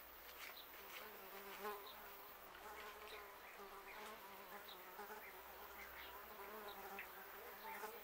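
Faint buzzing of a flying insect, a wavering drone that starts about a second in and keeps on, over scattered faint clicks of cats chewing their food.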